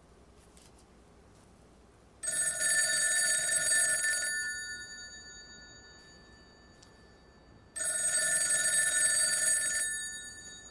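A black rotary desk telephone's bell ringing twice, each ring lasting about two seconds and fading out, the second starting about five and a half seconds after the first.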